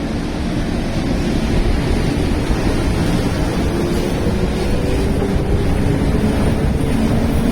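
JR West 221 series electric train's DC series-wound traction motors whining, their pitch slowly rising as the train gathers speed, over a loud steady running rumble.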